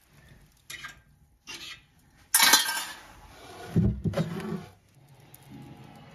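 Metal clinks and clanks at a wood-burning stove being tended to get its dying fire going again: a few light knocks, then a loud ringing clank a little over two seconds in, followed by softer rattling.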